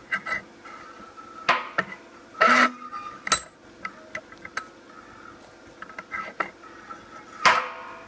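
Irregular clinks and knocks of metal objects being handled, with a few short scrapes, over a faint steady hum.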